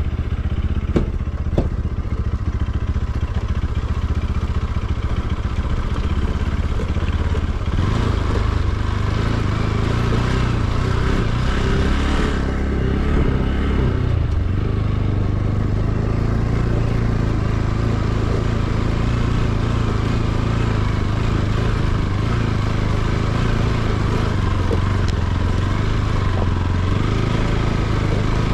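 Motorcycle engine running steadily on the move, under a constant rushing noise, with two short sharp knocks about a second in.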